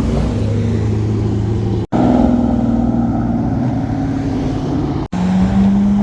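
Car engines running loud with steady pitch, in three spliced segments: the sound cuts off abruptly twice, about two seconds in and again about five seconds in, and each segment has a different engine note.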